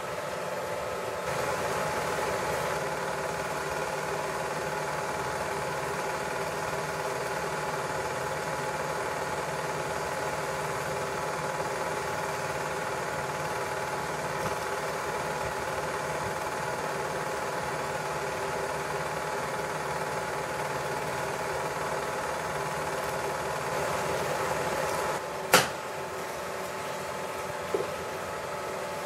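Porst Sound BSP 10 Super 8 projector running steadily, its motor, cooling fan and film transport making an even mechanical hum. Near the end a sharp click sounds and the running noise drops a little, followed by a smaller click.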